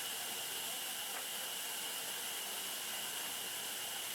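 Steady hiss with a thin, high held whine, unchanging throughout: machinery running.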